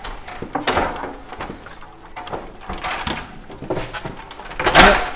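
Irregular wooden knocks and scraping as a folding workbench of 2x4s and plywood is wrestled out from behind stacked ladders, with a loud clatter near the end.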